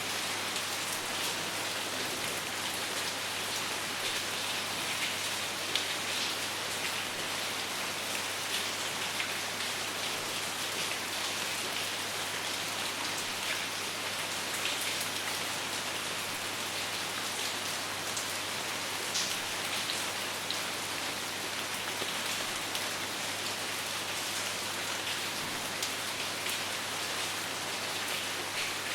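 Steady, even rainfall with many separate raindrop hits ticking through it.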